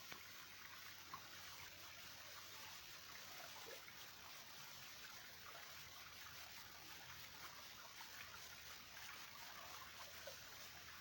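Small forest stream trickling, faint and steady.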